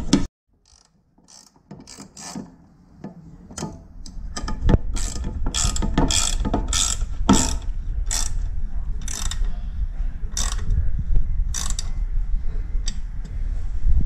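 A nut being done up on a bolt with a spanner, with a string of ratchet clicks, one every half second or so, starting about a second and a half in.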